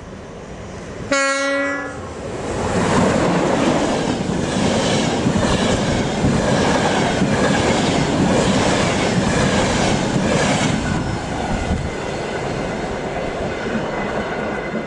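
An EP09 electric locomotive gives a single short horn blast about a second in, the Rp1 'attention' warning signal. The express train then passes at speed with a loud rushing noise and a regular clatter of wheels over the rail joints, easing slightly near the end.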